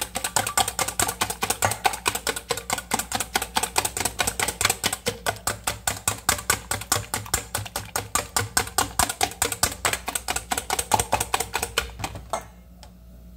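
Wire whisk beating two eggs in a stainless steel bowl: a fast, steady clatter of the wires against the metal bowl, several strokes a second, stopping about a second before the end.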